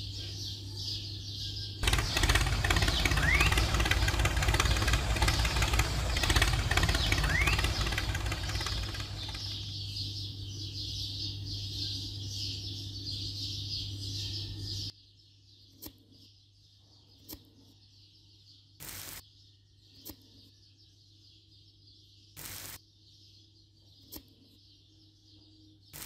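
A steady high drone runs under a loud rushing noise from about 2 s to 10 s. After a sudden cut the scene goes much quieter, with a series of short scrapes as a miniature shovel digs into sand and tips it into a toy trailer, about one every one to two seconds.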